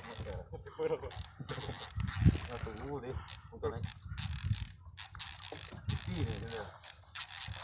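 Spinning reel working under the pull of a big hooked fish: the reel clicks and buzzes in irregular stop-start bursts with a thin high whine as line is pulled against the drag.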